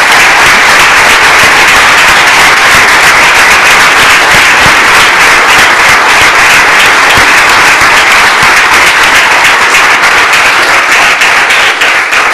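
Loud, steady applause: a roomful of people clapping.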